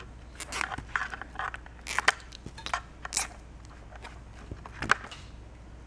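Plastic-insulated wires and connectors of a car remote-starter wiring harness being handled and twisted, giving irregular crackles, rustles and small clicks.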